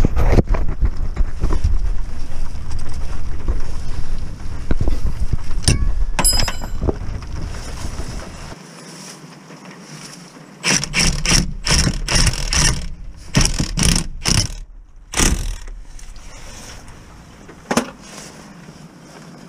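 Hand tools working metal on a car's gearbox and starter motor from underneath. A low rumble with scattered clicks is followed, about halfway through, by a quick run of about half a dozen short metallic scraping strokes, and one more near the end.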